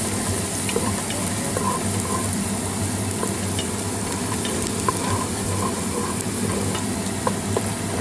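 Ginger and garlic sizzling in hot oil in a pot, stirred with a wooden spatula that scrapes and now and then gives a light tap against the pan. A range hood exhaust fan hums steadily underneath.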